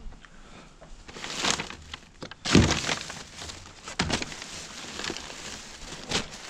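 Objects being handled and rummaged: rustling and crumpling, with a loud knock about two and a half seconds in and smaller knocks near four and six seconds.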